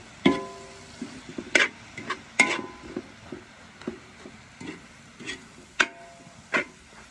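Perforated metal skimmer stirring pork and mustard greens in a large black metal wok, clanking and scraping against the pan about nine times at an uneven pace, several strikes ringing briefly, over a steady sizzle.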